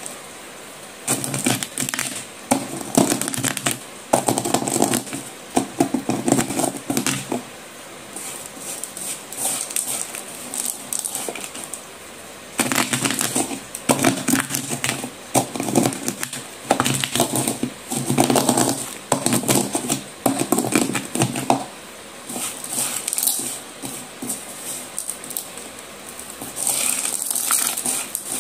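Broken slate pencil pieces and slate powder stirred and raked by hand in a bowl, making a dry, gritty crunching clatter. It comes in repeated strokes of about a second with short pauses, with quieter stretches in between.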